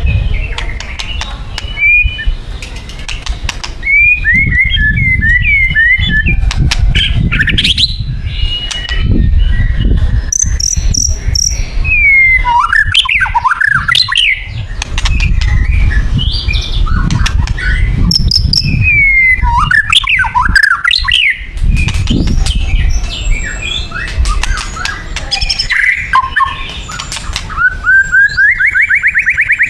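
White-rumped shama singing a long, varied song of whistled notes, pitch sweeps and quick chattering phrases, ending in a fast trill. A low rumble runs underneath.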